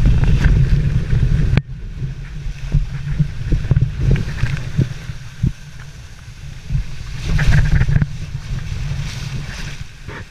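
Water rushing and splashing against a water slide's fibreglass chute as a rider slides through on a mat, heavy and rumbling at first, then dropping suddenly about a second and a half in to softer sloshing with scattered thumps as the ride slows in the run-out.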